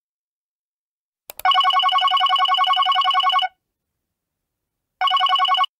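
Telephone ringing: a short click, then a trilling ring of about two seconds, a pause, and a second ring that cuts off after well under a second as the call is answered.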